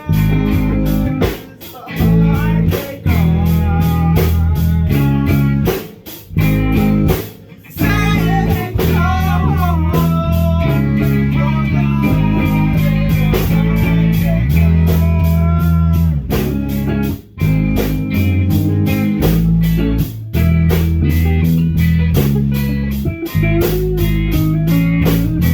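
Band music with guitar, bass and a steady drum beat, a guitar-led blues-rock sound with bending notes in the middle, and a few brief breaks.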